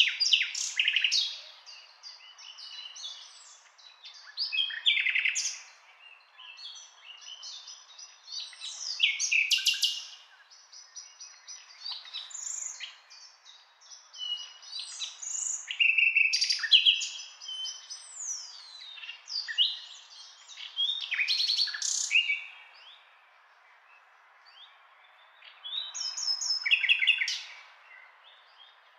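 Birds chirping and singing, a busy run of short trills, chirps and whistles with brief pauses, ending in a last burst of song and then a quieter stretch.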